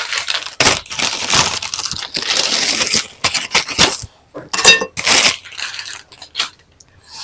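Close-up crunching and chewing of Uncle Chips potato chips, a dense run of crackle for about three seconds, then a few short crunches with pauses between them.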